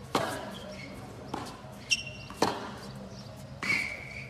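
Tennis balls struck by rackets in a hard-court rally: about five sharp pops, each a second or so apart. Short high shoe squeaks on the court come in between.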